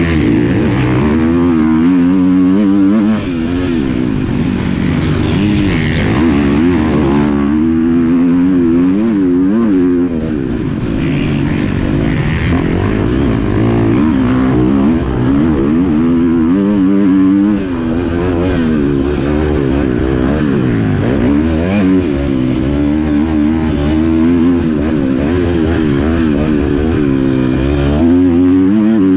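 Several motocross motorcycles racing together, their engines revving up and dropping back over and over as they shift through gears and brake into turns.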